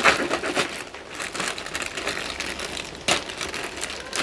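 Plastic Maggi instant-noodle packet crinkling as it is handled and opened, with a sharp click about three seconds in.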